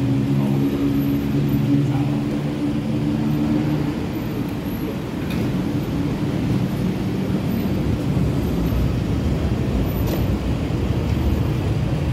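A motor vehicle running: a steady low engine drone for the first few seconds, then mostly a dense low rumble of road noise.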